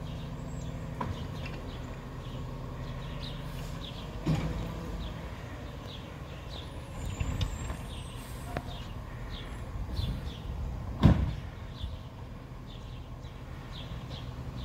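Labrie Expert 2000 side-loading garbage truck running steadily while its automated arm lifts and empties curbside compost bins. A sharp bang comes about four seconds in, smaller knocks follow, and the loudest bang comes about eleven seconds in as a bin knocks against the truck's hopper.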